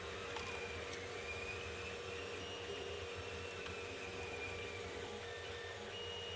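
A 3D printer running quietly: a steady low hum with faint high whines that shift in pitch every second or so, and two light ticks about half a second and a second in.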